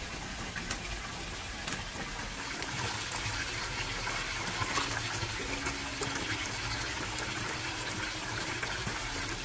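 Wood fire burning in a brick oven's firebox: a steady rushing hiss with scattered small crackles as the firewood is stoked.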